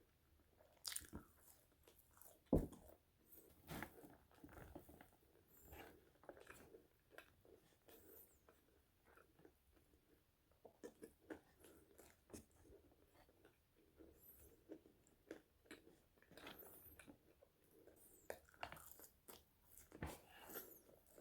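Chewing and biting crispy Potato Corner fries: irregular soft crunches and mouth clicks, with one sharper crunch about two and a half seconds in.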